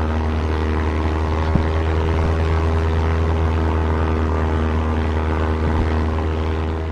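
Steady drone of a propeller airplane's piston engine at one unchanging pitch: a dubbed aircraft sound effect.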